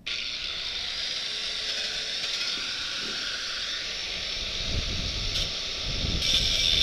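A power cutting tool grinding through the steel tube of a bicycle frame: a steady hissing grind that starts abruptly and grows louder near the end.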